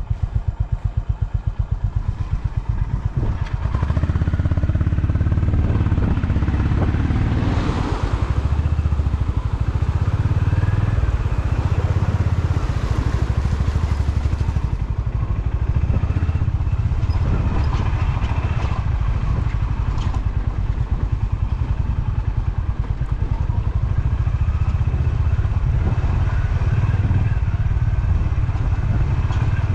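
Overloaded touring motorcycle's engine running at low revs, then pulling away about four seconds in and running on under load on an off-road track. A rushing hiss joins it from about eight to fifteen seconds in.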